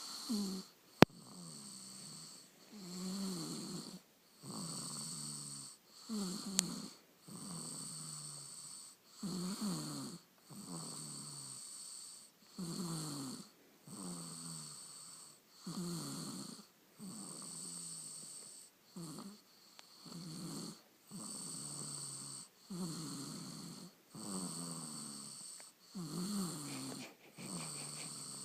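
Snoring, one breath in and out about every three seconds, each with a pitched stretch that falls and a longer, flatter one. A sharp click about a second in, and a fainter one later.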